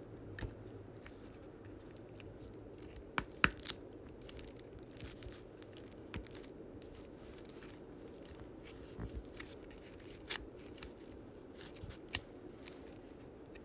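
Diamond-painting drill pen tapping and setting round resin drills onto the sticky canvas, with fingers pressing them down: scattered small clicks and ticks, the sharpest a quick pair about three seconds in, over a steady low background hum.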